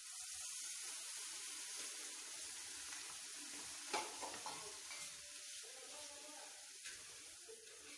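Water and sugar sizzling in a hot heavy-bottomed pan on a gas flame, a steady hiss that slowly dies down as the sugar syrup begins to heat. A single light knock about four seconds in.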